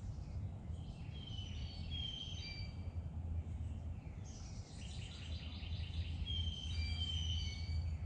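Songbirds singing: short, high whistled notes in two bursts, with a quick trill of repeated notes partway through, over a steady low rumble.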